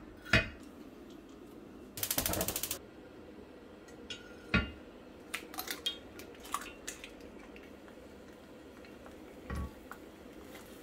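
A heavy cast-iron griddle knocks as it is set on a gas hob. About two seconds in comes a fast run of clicks from the burner's igniter as it lights. Eggs are then cracked and dropped onto the griddle, making a knock, a few light taps and a dull thump near the end.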